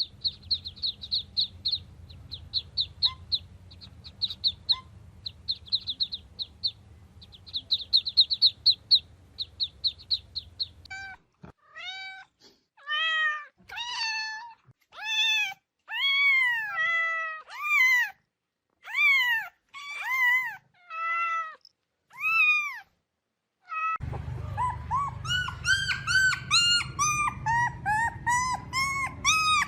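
A string of animal calls. For about the first ten seconds there are bursts of fast, high chirping. Then a domestic cat meows repeatedly, each meow rising and falling. From about two-thirds of the way in comes a quick run of shorter, higher cries over a low rumble.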